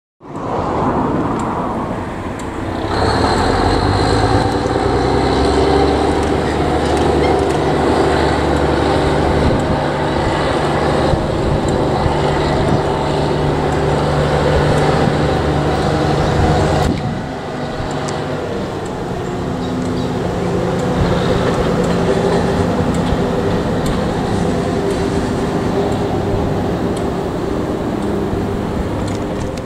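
Diesel locomotive engine running with a steady low drone; the sound changes abruptly about 17 seconds in.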